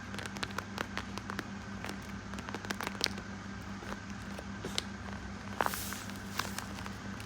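Irregular small crackles and clicks from handling craft materials while a squishy toy is being made, over a steady low hum.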